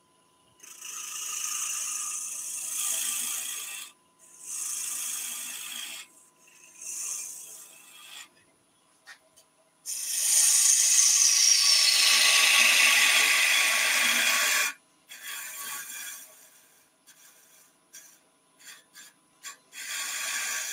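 A woodturning gouge cutting wood spinning on a lathe, in a series of scraping cuts. The longest and loudest cut comes about ten seconds in, its hiss falling in pitch as it goes, and shorter, lighter cuts follow near the end.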